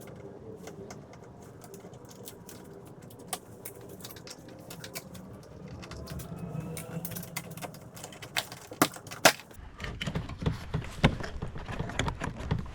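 Scattered small clicks and taps of a screwdriver and hands working on a Kia Sorento's plastic interior trim panel as its screws are taken out; from about nine seconds in the clicks and knocks come louder and thicker as the panel is handled and worked loose.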